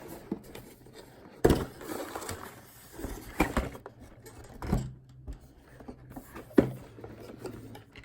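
Handling sounds of a box of welcome coffee capsules being opened and gone through, with light rustling and four sharp knocks and clicks, the loudest about six and a half seconds in.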